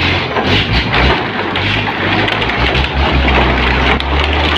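REO 6x6 truck engine pulling slowly under a heavy load of bamboo, a steady low drone that grows stronger about three seconds in, over a dense crackling rustle of leaves and branches brushing against the bamboo poles.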